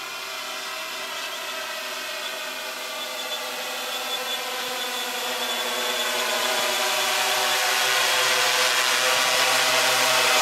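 Quadcopter's electric motors and propellers buzzing with many steady overtones, drifting slightly in pitch and growing steadily louder as it flies back toward the microphone. The motor sound carries a chirping that the pilot puts down to PID gains set too high.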